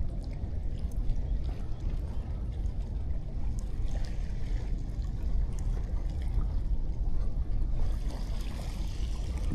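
Wind blowing on the microphone over the wash of waves on a beach, the hiss of the surf swelling near the end.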